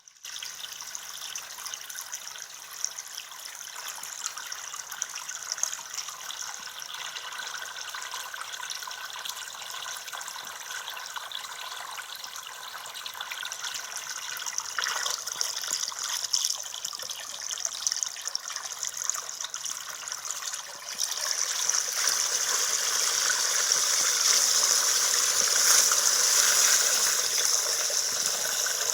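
Washing machine drain pump running and pushing water, which splashes and trickles steadily, with a faint motor hum underneath. The water noise gets clearly louder about three-quarters of the way through.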